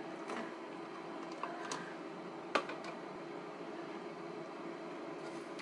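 A steady hum from a running kitchen appliance, under light clicks and taps of a plastic food container and a ceramic bowl being handled; one sharper tap comes about two and a half seconds in.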